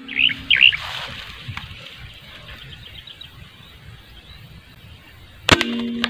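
Small birds chirping a few times in the first second, with fainter chirps a couple of seconds later. About five and a half seconds in comes a single sharp crack, the shot of a CO2 air rifle, followed by a short steady tone.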